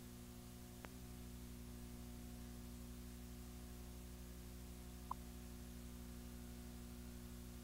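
Faint steady electrical hum and hiss of a VHS tape playback, with a single click about a second in and a short high blip about five seconds in.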